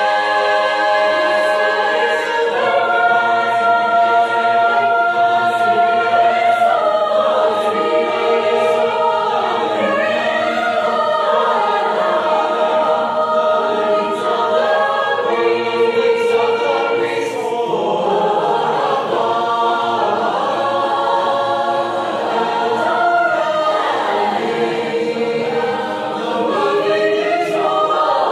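Mixed choir singing a cappella in six parts (two soprano, two alto, tenor and bass), sustained upper lines over busy rhythmic syllables in the lower voices. In the second half the basses sing a rhythmic 'dm dm' figure under the upper parts.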